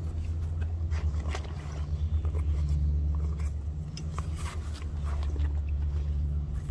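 Rustling and scraping of a canvas daysack being lifted and swung onto a man's back, with scattered crackles of feet shifting on dry leaves and twigs. A steady low rumble runs underneath.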